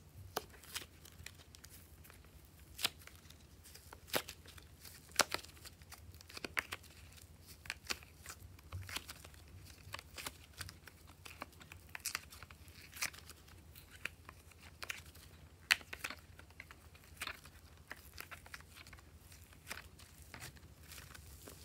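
Glossy slime being squished, stretched and mixed by hand: irregular sharp sticky pops and crackles, a few a second.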